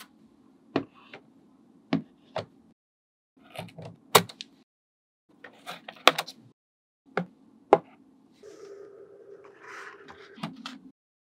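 Small magnetic balls clicking sharply as magnet-ball pieces snap together, about seven separate clicks. Near the end comes a softer rubbing, sliding sound with a couple of clicks as a flat roof panel is pressed into place.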